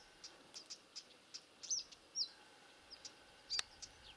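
Small bird calling in short, high chirps that rise and fall in pitch, about two a second, with one sharp click about three and a half seconds in.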